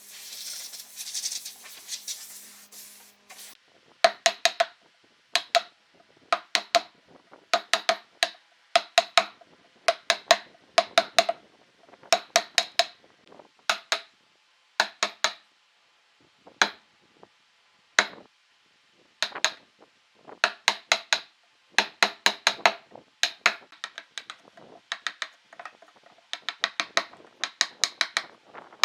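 Brief soft hiss, then a long run of sharp taps in quick clusters of two to four, each leaving a short ring, like a hand tool being struck during woodworking.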